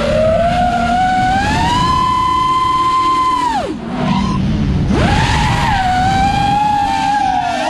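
Brushless motors of an FPV quadcopter (Turnigy 2205 2300 KV, three-blade 5-inch props) whining as they spin, heard from the onboard camera with wind rush underneath. The whine climbs in pitch over the first couple of seconds and holds high, drops sharply about three and a half seconds in as the throttle is cut for a roll, then rises back about a second later to a steady whine.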